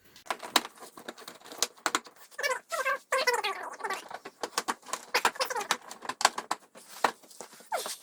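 A rapid clatter of clicks and knocks from hands and tools working on a car's plastic front bumper parts and fasteners, mixed with brief high, chattering voice-like sounds. It cuts off suddenly at the end.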